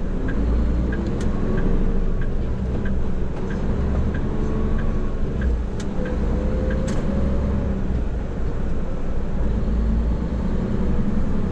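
Hino heavy truck's diesel engine running, heard inside the cab, its note rising around the middle of the stretch as the truck gathers speed. The turn-signal indicator ticks about twice a second through the first five seconds or so, then stops.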